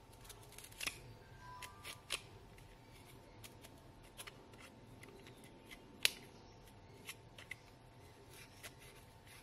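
Paper knife blade cutting a slit into a small cardboard circle: faint, irregular scratchy clicks and scrapes as the blade works through the card, with one sharper click about six seconds in.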